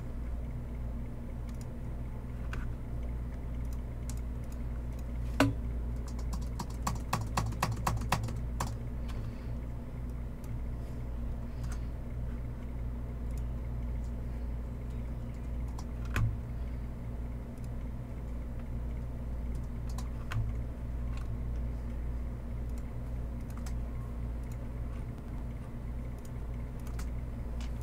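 Typing on a computer keyboard: a quick run of keystrokes about six to nine seconds in, with a few single clicks scattered elsewhere, over a steady low hum.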